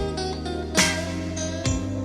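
Background music: a guitar-led instrumental passage without singing, chords held over a steady bass, with one strong strum about a second in.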